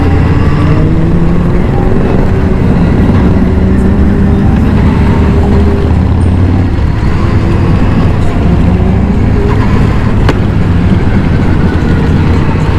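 Superbike engines running at steady cruising speed during a group ride, their low engine note drifting slightly up and down in pitch.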